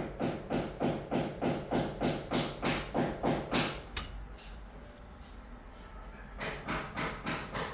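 Rapid, even strokes, about three a second, that stop for a couple of seconds midway and then start again, typical of hand work with a tool such as sawing or scraping.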